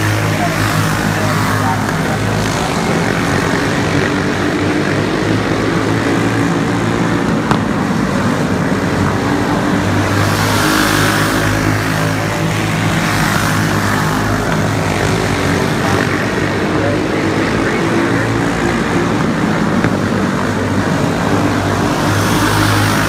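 A field of racing karts with stock Briggs & Stratton engines running laps together on a dirt oval. The engine sound swells each time the pack passes close, about every eleven seconds.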